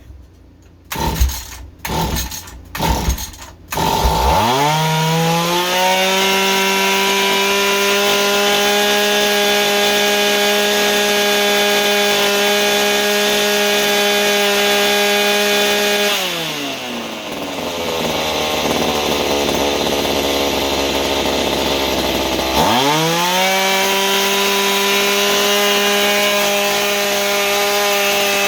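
Mantis mini tiller engine sputtering in a few short bursts, then catching and revving up to a steady high speed. About two-thirds of the way in it drops to a low idle, then revs up again and falls off near the end. It won't settle into a steady idle while its carburetor screw is being adjusted.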